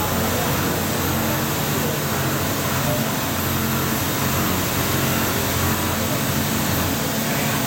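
CNC milling machine cutting SKD61 hot-work tool steel with a POKOLM milling cutter: a steady machining noise with a constant low hum.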